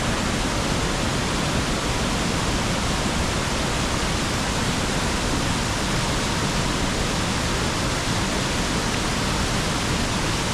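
Rhine Falls: a loud, steady rush of heavy falling water, one unbroken wall of noise.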